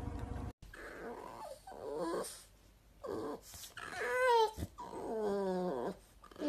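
French bulldog vocalising in a series of whining, grumbling calls that rise and fall in pitch, the loudest about two-thirds of the way through, followed by a longer call that falls away.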